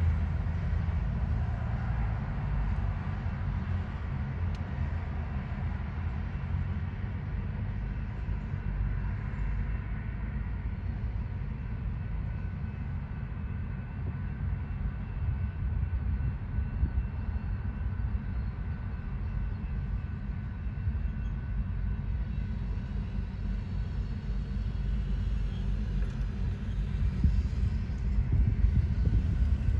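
Loaded coal train's hopper cars rolling steadily past, a continuous low rumble of steel wheels on rail.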